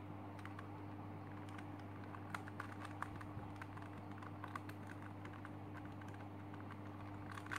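Layers of a plastic Super Square One twisty puzzle being turned by hand: a scatter of light clicks and rattles as the pieces slide and catch, over a steady low electrical hum.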